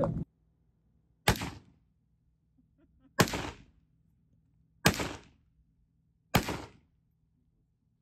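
Four single gunshots, spaced about one and a half to two seconds apart, each trailing off in a short echo.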